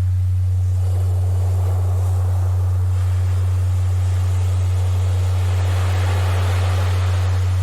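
A steady low-pitched tone, a Rife-style healing frequency, holding unchanged over the wash of ocean surf; the tone is the loudest part. The surf ebbs early on and builds to a crest about six to seven seconds in.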